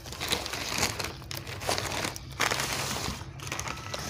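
Newspaper wrapping crinkling and rustling irregularly as it is pulled off a potted plant, with several louder crackles.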